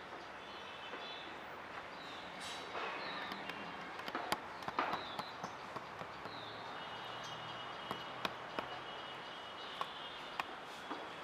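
Outdoor woodland ambience: a steady faint background noise with short, high bird calls and scattered sharp clicks, the clicks bunched about four to five seconds in.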